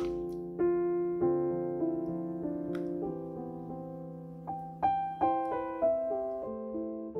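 Background piano music: a slow, even melody of single struck notes over held chords.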